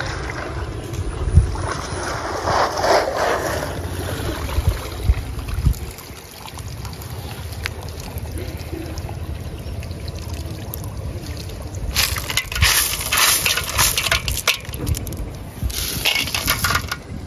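Water splashing and trickling in two short bursts, about twelve and sixteen seconds in, as a net is worked in a shallow pond, over a steady low rumble.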